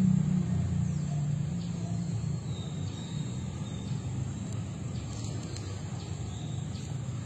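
Low rumble of a passing vehicle, loudest at the start and slowly fading away. A few faint high chirps come near the middle.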